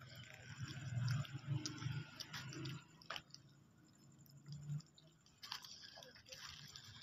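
A person chewing a bite of an egg-wrapped burger, loudest in the first three seconds, with a sharp click about three seconds in.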